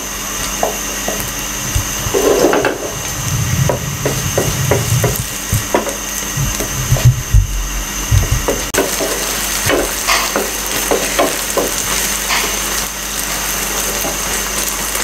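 Wooden spatula scraping and knocking against a frying pan as egg frying in it is broken up and stirred, with irregular short taps and scrapes.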